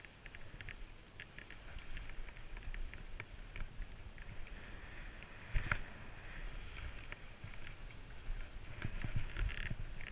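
Skis sliding and scraping over snow, with a steady hiss, low wind rumble on the helmet microphone, and scattered short clicks; one sharper knock comes a little past halfway.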